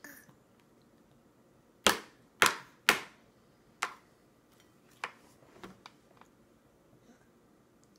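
Sharp plastic knocks on a high-chair tray and bowl, a baby banging a plastic spoon and her hand on them: three loud raps in quick succession about two seconds in, then a few lighter taps.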